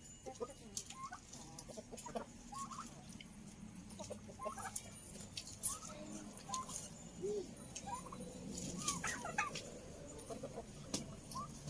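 Domestic chickens clucking, short calls scattered throughout, with a few sharp clicks among them.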